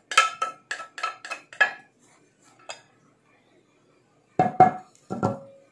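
Glassware clinking against a glass mixing bowl as spices are tipped in: a quick run of about six light taps in the first two seconds, then a few louder clinks near the end, the last one ringing briefly.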